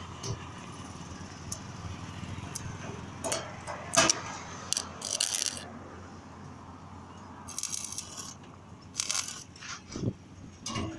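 Stick (arc) welding on a steel wheelbarrow with a homemade jua kali arc welder: the arc crackles and sizzles in short, irregular bursts of under a second, with sharp clicks and taps between them over a steady low hum.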